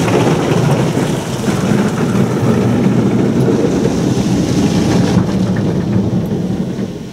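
Heavy water spray from an automatic car wash arch drumming on a car's roof and windows, heard from inside the cabin as a loud, steady rain-like rush that dies away near the end.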